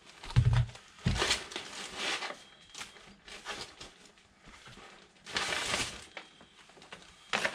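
Crinkling and rustling as plastic-wrapped wallpaper rolls and lace are taken out of a bag and laid down, in several short bursts. A dull thump comes about half a second in.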